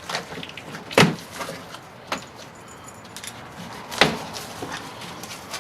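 Knocks and thumps of a boxed computer case being handled and unpacked. There are two sharp thumps, about a second in and about four seconds in, and lighter knocks and rustles between them.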